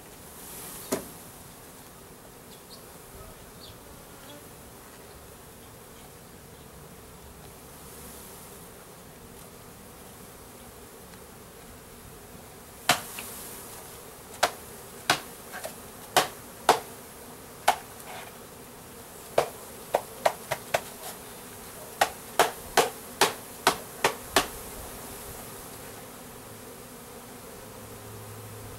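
Russian-Carniolan honey bees buzzing steadily as a package of bees is shaken into a hive. One sharp knock about a second in, then from about halfway a run of some twenty sharp knocks in quick, irregular groups as the wooden package box is knocked to dislodge the bees.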